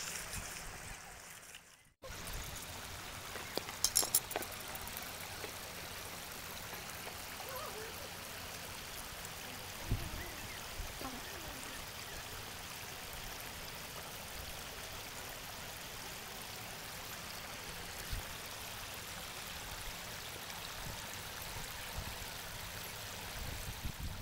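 Steady rush of a shallow stream running over rocks. A few sharp clicks come about four seconds in, and a single thud near ten seconds.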